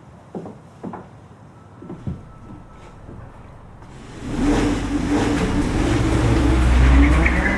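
A few soft knocks, then about four seconds in a race car's engine comes in loudly and revs, its pitch wavering up and down over a deep rumble.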